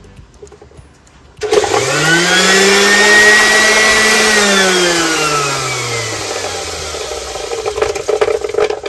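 Electric sander switched on: its motor spins up to a steady whine over a loud hiss, then slows with the pitch falling over a few seconds, and the sound cuts off near the end.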